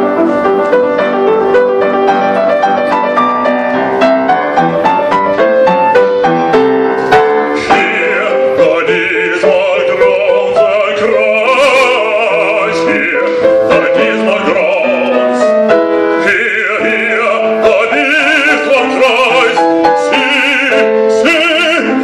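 Grand piano playing a passage alone, then a man's operatic voice enters about seven seconds in and sings with a wide vibrato over the piano accompaniment.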